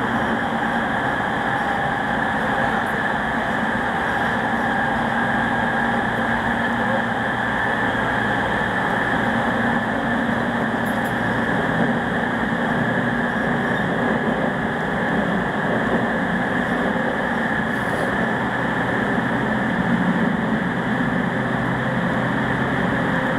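Running noise inside a JR East 209 series 500 electric train's motor car with GTO-inverter traction, moving at a steady pace through a tunnel: an even wheel-and-rail rumble with several steady motor and gear tones and no marked change.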